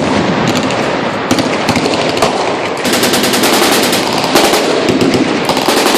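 Several machine guns firing full-auto at once, rapid shots overlapping into a continuous clatter with no pause.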